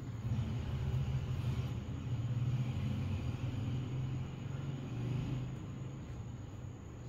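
A low, steady rumble that holds for about five seconds and then slowly fades.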